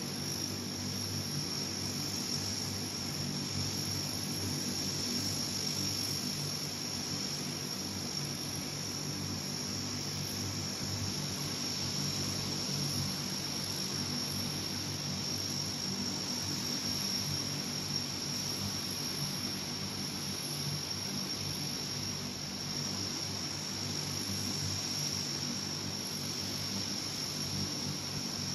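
Lockheed L-188 Electra airtanker's four turboprop engines running at idle in the loading pit, a steady low hum with a steady high whine over it. The engines are kept running while the tanker is reloaded.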